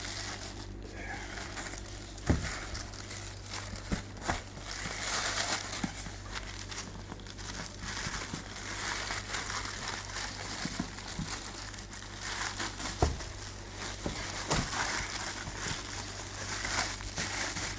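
Plastic packaging bag crinkling and rustling as it is handled and opened, with a couple of sharp knocks.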